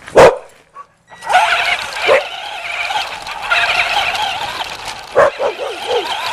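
A dog barking and yipping: one loud sharp bark right at the start, a single bark about two seconds in, and a quick run of four short falling yips near the end. Beneath them runs a continuous wavering whir, the motor of the radio-controlled toy car the dog is chasing.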